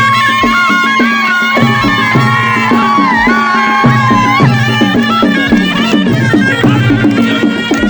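Nepali traditional festival band (baja) playing: a shawm-like wind instrument holds long, wavering notes over a steady drum beat.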